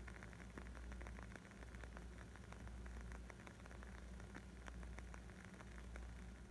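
Wood fire crackling: a dense run of small pops and snaps over a soft hiss, with a steady low rumble underneath.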